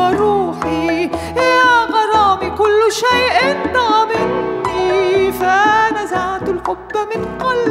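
A female soprano singing an Arabic song in long, wavering notes with vibrato, over instrumental accompaniment with a steady bass line.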